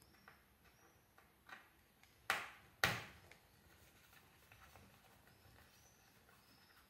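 Faint ticks of a small precision screwdriver backing out a tiny laptop bottom-cover screw, with two sharp clicks a little over two seconds in, about half a second apart, as the small metal parts are handled.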